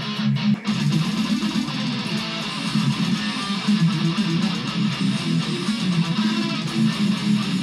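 Electric guitar playing a heavy metal riff: a few short choppy strokes at first, then continuous playing, with regular low thuds underneath.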